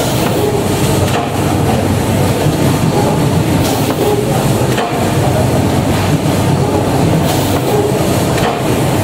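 CMD 540 fully automatic case-making line running: steady mechanical clatter of its belt conveyors and drive, with occasional light clicks.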